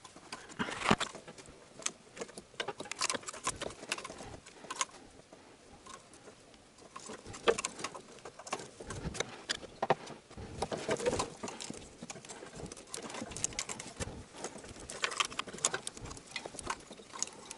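Sped-up sound of hands working a wiring harness and plastic injector connectors around an engine: scattered clicks, light knocks and rustling.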